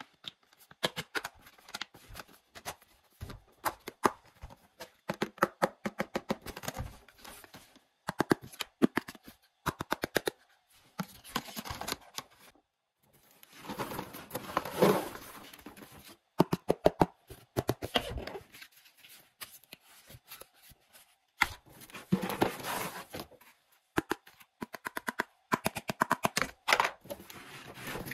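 Hard plastic parts of a toy kitchen playset being handled and fitted together: many quick clicks, taps and knocks of plastic on plastic, with a few longer stretches of scraping and rubbing about halfway through and again later, among them cardboard box flaps being moved.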